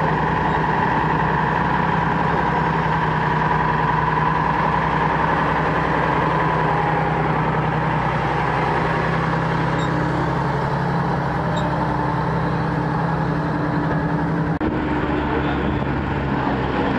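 Diesel engine of a Mercedes-Benz Unimog running steadily as the truck drives slowly past pulling a trailer. About three-quarters of the way through, the sound cuts abruptly to a different engine: a large Fendt tractor driving across the sand.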